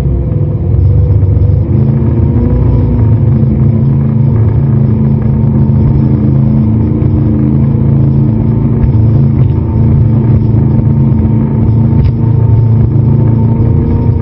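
Speedboat's inboard engines running steadily at speed: a loud, even, low drone.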